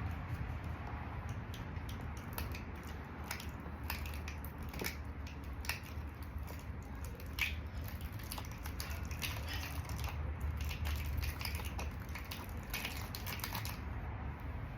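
Irregular metal clicks and scrapes of hand tools and small parts being worked on a Yamaha Zuma 125 scooter's cylinder head, coming thickest near the end, over a steady low hum.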